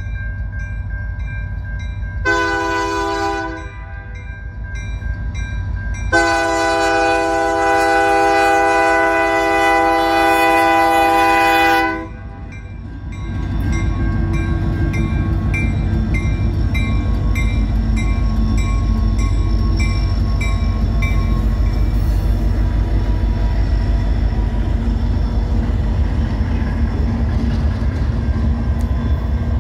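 Nathan K3L three-chime air horn on a CN SD75I locomotive sounding a short blast and then a long blast of about six seconds. The locomotive then passes with a heavy diesel rumble, followed by the clatter of freight-car wheels on the rails.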